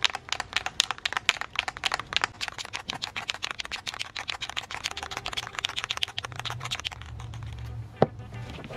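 Aerosol spray paint can being shaken hard, its mixing ball rattling inside in rapid clicks, several a second, to mix the paint before spraying. The rattling stops a little over six seconds in, and one sharp click follows near the end.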